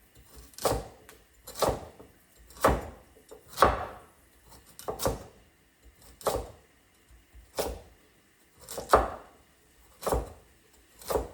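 Kitchen knife chopping root vegetables (carrot and potato) into chunks on a cutting board: slow, even chops, about one a second, each a sharp knock on the board.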